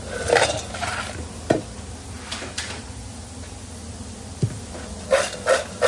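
Fries being tossed in a stainless steel bowl: short swishing shakes, two early on and a quick run of about three a second near the end, with a couple of light clicks between, over a steady low kitchen hum.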